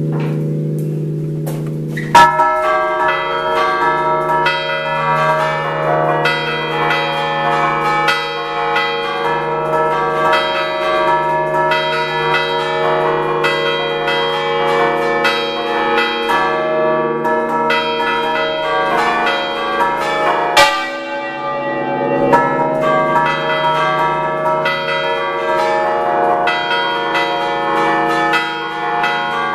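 The six-bell concert of the Basilica dei Fieschi tower, tuned in D and cast by the Picasso foundry, rung by hand in the Ligurian 'a ducale' style, heard loud and close from inside the belfry. A bell's hum dies away, then a heavy stroke about two seconds in starts a fast, rhythmic run of clapper strikes across several bells, with another heavy stroke about twenty seconds in.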